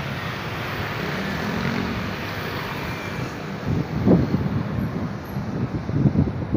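Jet airliner noise from a Boeing 737-900ER's CFM56 turbofans on landing approach: a steady low rumble and hiss, with uneven low surges about four and six seconds in.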